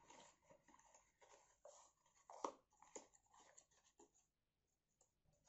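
Faint handling of a small cardboard box: soft rustles and light taps as its flaps are folded, with two slightly louder taps about two and a half and three seconds in.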